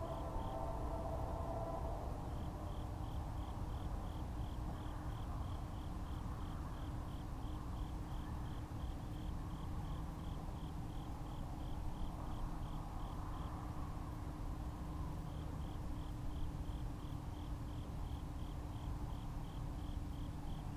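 An insect chirping in even, rapid pulses of about three a second, with two short breaks, over a low steady rumble. A distant train horn fades out in the first second or two.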